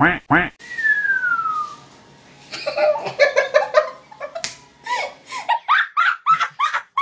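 A person giving a mock whistling snore: a short snort on the in-breath, then one long whistle falling in pitch on the out-breath. About two seconds in, loud laughter in short choppy bursts takes over.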